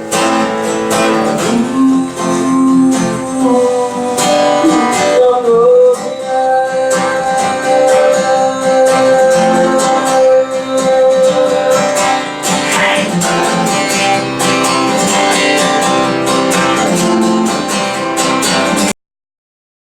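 Acoustic guitar strumming an instrumental passage between verses of a song; the sound cuts off abruptly near the end into silence.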